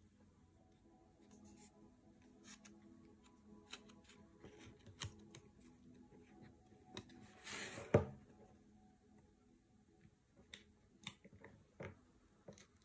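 Quiet handling of food packaging: a cardboard box and a metal tin are picked up and worked by hand, with light rustles and clicks, and a short scraping rush about seven and a half seconds in as the tin slides out of its cardboard sleeve.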